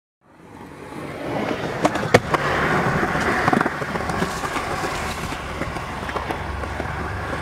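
Skateboard wheels rolling on concrete, fading in over the first second or so, with a few sharp clacks of the board, the loudest a little over two seconds in.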